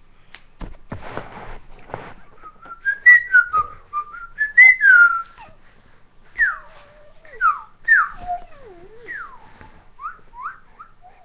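A person whistling through pursed lips: a wavering tune for a few seconds, then a string of short downward-sliding whistles. Some rustling noise comes near the start.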